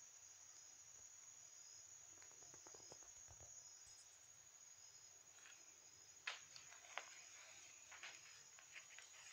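Near silence: faint room tone with a steady high-pitched whine. A few soft taps in the last three seconds come from the cake's foil-covered board being handled.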